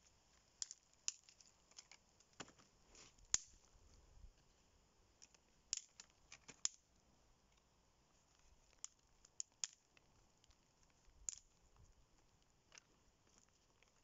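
Dry birch sticks and twigs knocking and clicking as they are handled and laid side by side on sand: scattered sharp wooden clicks in small clusters, the loudest about three seconds in, with near silence between them.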